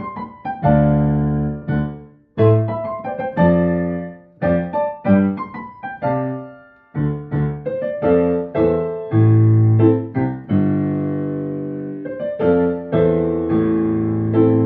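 Background piano music: single notes and chords struck one after another and left to ring and fade.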